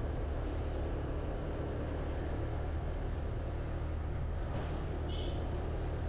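Motorcycle engine running steadily at low speed, with wind and road noise; a brief high chirp about five seconds in.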